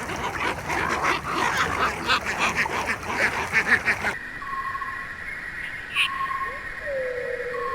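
A flock of ducks or geese calling over one another, many overlapping quacks and honks. About four seconds in it cuts abruptly to a quieter scene with a steady high tone, short chirps repeating roughly once a second and one falling whistle.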